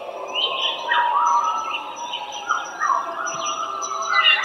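A group of coyotes howling and yipping together, several high calls overlapping and sliding up and down in pitch.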